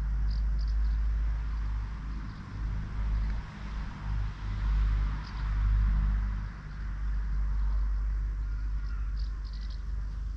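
Low rumble that swells and fades unevenly, with a few faint, short, high bird chirps near the start and again near the end.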